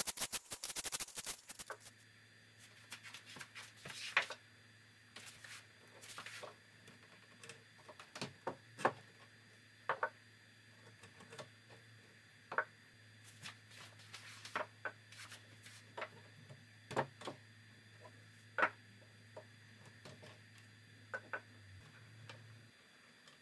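Rapid hand-sanding strokes with a sheet of sandpaper on a pine table leg, stopping after about a second and a half. Then scattered light knocks and clicks as the wooden frame and small parts are handled, over a faint steady low hum.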